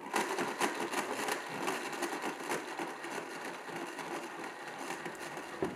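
Blendtec blender running, its motor spinning the blade through a smoothie in the jar with a steady whir.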